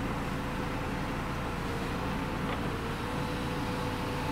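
Electric sunblind of a Nissan Qashqai+2's panoramic glass roof sliding closed. Its motor whirrs steadily over a low rumble.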